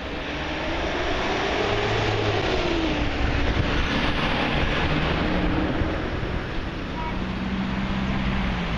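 Fire-service vehicles driving past one after another: a Renault Mascott light rescue truck towing a boat on a trailer goes by close, its engine and tyres loudest in the middle. Near the end the next vehicle approaches, its engine note dropping.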